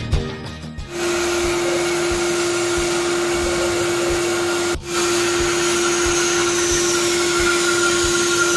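From about a second in, a bandsaw runs steadily, cutting through a thick wooden board: a constant hum with a dense hiss of blade through wood. It breaks off briefly about halfway and resumes. Background music with a steady beat plays underneath.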